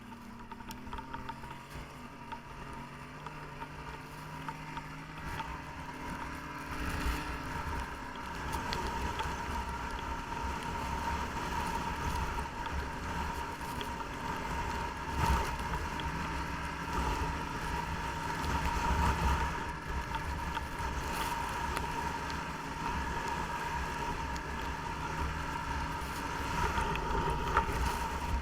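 Snowmobile engine running as the sled rides along, with a steady high whine over the engine note and wind rumbling on the microphone. The engine gets louder about seven seconds in, as the sled picks up speed.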